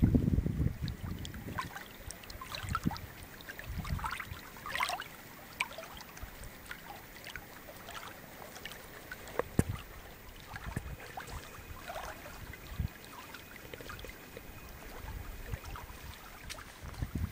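Small waves lapping and trickling over a pebbly lake shore, with irregular little splashes and a few soft low thumps.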